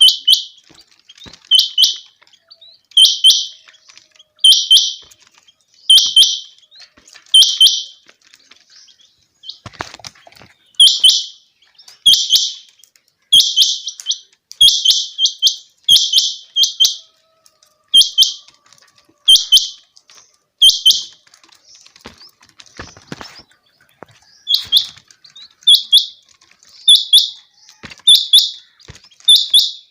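Rain quail calling: short, high, sharp notes, usually in pairs, repeated about every one and a half seconds, with two brief pauses.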